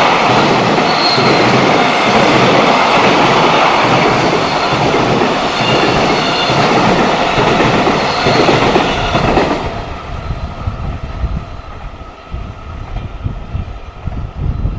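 Freight train passing close by, wheels running over the rails with thin high tones above the noise. The sound cuts off fairly suddenly about ten seconds in as the train clears. Gusts of wind then buffet the microphone.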